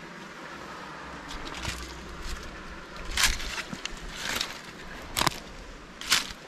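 Footsteps crunching through dry fallen leaves on a dirt trail, starting about a second in and falling roughly once a second, over a steady low rush.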